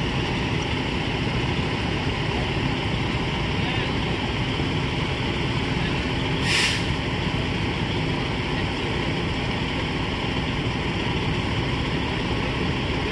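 Fire engine running in a steady drone, with a short hiss about six and a half seconds in.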